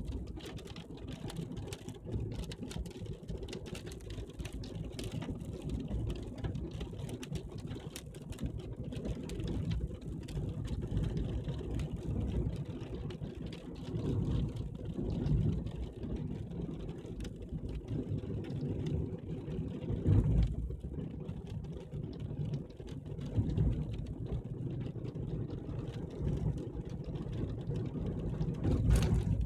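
Car running, a steady low engine and road rumble that swells and eases a few times.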